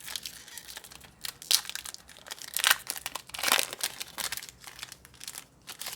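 Foil trading-card booster pack wrapper crinkling and being torn open by hand, in several irregular crackling bursts that are loudest near the middle.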